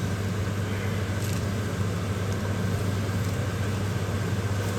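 Mutton pieces frying in ginger-garlic paste in a cooking pot, a steady sizzle over a constant low hum.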